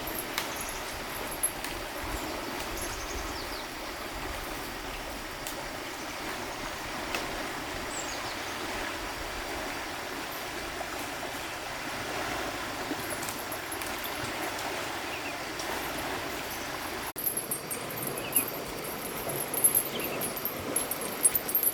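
Flowing stream water, a steady rushing. About 17 seconds in the sound cuts abruptly, and scattered sharp clicks and splashes follow.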